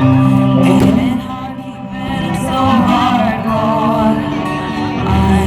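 Music with singing: long held notes and a wavering sung line over a low bass, with one sharp crack about a second in.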